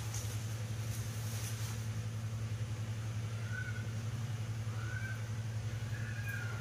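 A steady low mechanical hum throughout, with three faint, short, high squeaking calls from a baby macaque in the second half.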